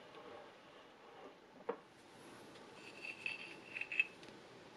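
Faint handling of steel band saw parts: a single light knock, then a run of small metallic clinks with a brief ring, loudest near the end.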